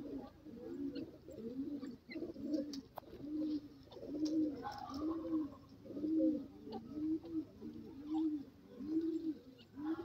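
Grey francolin giving a steady run of soft, low calls, each note rising and falling, about two a second.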